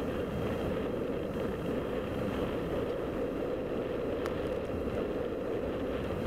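Wind rushing over the onboard camera microphone of a Radian Pro motor glider gliding with its motor off: a steady rushing noise with no motor tone.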